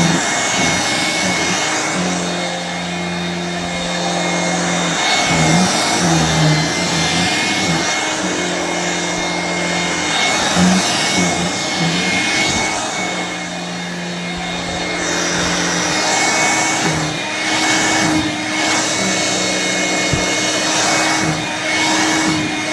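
1985 Hoover Brush Vac handheld vacuum running continuously, its motor and roller brush working over fabric. A steady high whine sits over a lower hum that shifts in pitch and drops in and out every second or two as the load changes.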